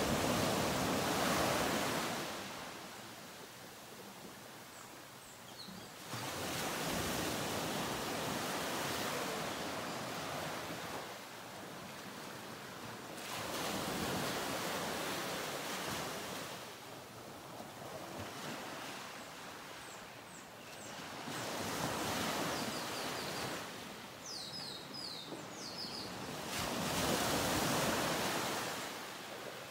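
Surf washing onto a sandy beach, swelling and fading in slow surges every six to eight seconds, with a few faint high chirps near the end.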